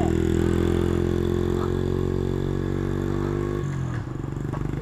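Pit bike engine running at a steady pitch as the bike rides away, slowly growing fainter. Near the end its note drops and it gets quieter.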